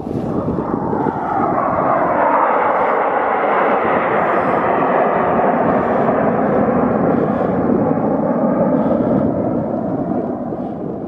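Fixed-wing aircraft flying overhead, a loud rushing roar that swells in the first couple of seconds, holds, and begins to fade near the end.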